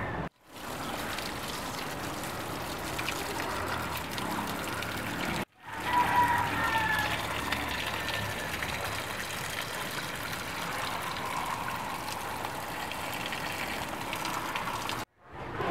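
Water running in a stream into a plastic basin and splashing over cut vegetable pieces as hands rub and rinse them, spilling over the rim onto the ground. The steady splashing breaks off for a moment twice, and a short high squeak sounds about six seconds in.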